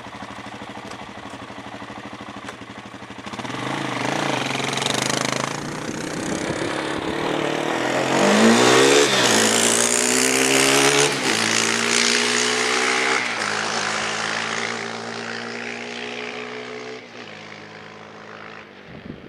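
2003 Suzuki LTZ 400 quad's single-cylinder four-stroke engine in a drive-by: it grows louder as it approaches, revs with its pitch climbing and dropping as it passes, then steps down in pitch and fades away.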